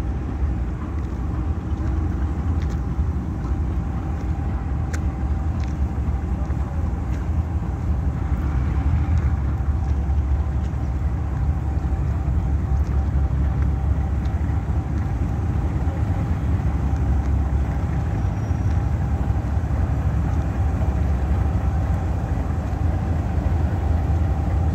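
Diesel locomotive engine running as it pulls a freight train slowly forward: a steady low rumble with a steady whine over it, a little louder from about eight seconds in as it draws closer.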